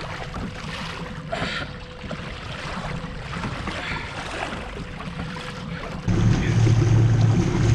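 Sea water lapping around a fishing kayak, with wind on the microphone. About six seconds in the sound jumps abruptly to a much louder steady low rumble with a faint high whine: the kayak's Torqeedo Ultralight 403 electric motor driving it forward, with water rushing past the hull.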